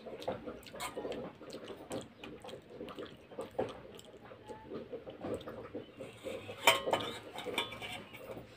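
Steel spoon clinking and scraping against a stainless steel bowl in short, scattered clicks, with one louder clink about two-thirds of the way through.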